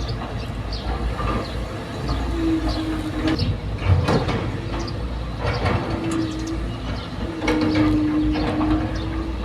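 Excavator at work: a steady low engine rumble with repeated metallic knocks and clanks, and a steady whine that comes and goes several times.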